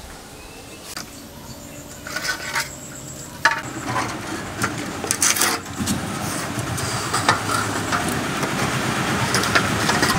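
Steel trowel scraping and tapping on wet cement mortar while a slab top is smoothed: a run of short scratches and knocks that gets busier and louder after about three seconds.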